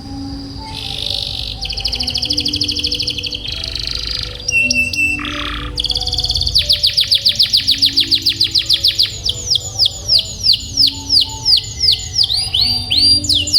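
Domestic canary singing a long rolling song: fast trills in the first few seconds, a short steady whistle, then from about six seconds a long run of rapid downward-sweeping notes that slow toward the end.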